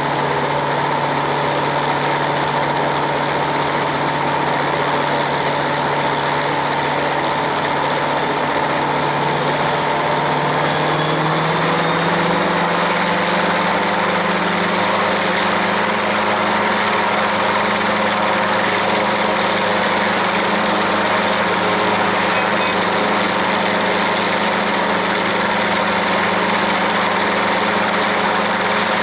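CH-77 Ranabot light helicopter running on the ground with its rotor turning, a steady engine-and-rotor drone. About eleven seconds in the pitch climbs as the revs come up, then holds steady at the higher pitch.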